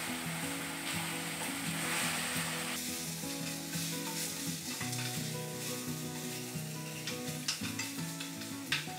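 Spiced masala and potatoes frying and sizzling in a pan while being stirred with a spatula, with sharp taps and scrapes of the spatula on the pan in the second half. The sizzle is louder for the first few seconds. The masala's water has cooked off and it is frying in its own oil on the way to browning.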